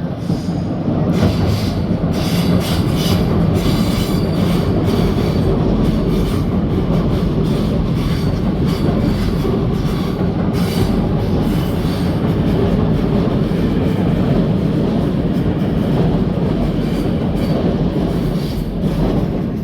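A train passing close by: a steady rumble of wheels on rail, with runs of rapid clicking as the wheels cross rail joints.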